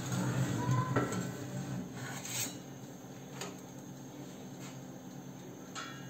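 Several separate metal clinks and scrapes, about a second apart, from a metal pizza pan and lifter knocking against the wire rack of a countertop toaster oven as a pizza is slid in.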